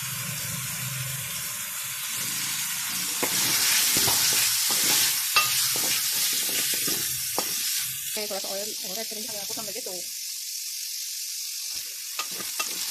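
Chicken, carrot and green pepper strips sizzling in hot oil in a wok while a wooden spatula stirs them, scraping and knocking against the pan. The sizzle grows louder for a few seconds in the middle.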